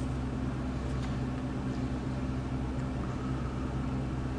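Steady low electrical hum, several low tones held unchanging, over a faint even hiss like a running fan or appliance motor.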